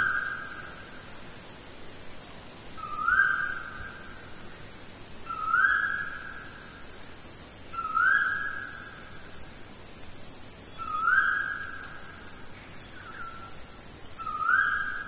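A steady high-pitched insect drone, with a bird repeating one short whistled note about every three seconds. Each note slides up slightly and then holds.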